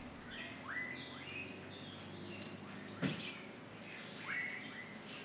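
Faint rainforest birdsong: short chirping calls with quick pitch sweeps, repeated every second or so, with a single soft knock about three seconds in.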